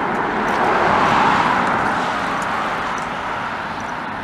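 A car passing on the road alongside, its tyre and engine noise swelling to a peak about a second in and then slowly fading away.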